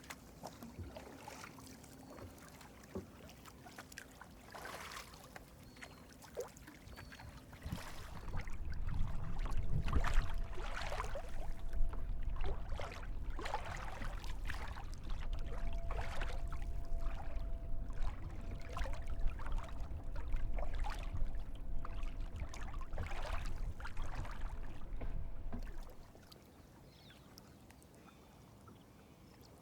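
Kayak paddle blades dipping and splashing in the lake water in regular strokes. A low rumble joins them from about eight seconds in and stops a few seconds before the end.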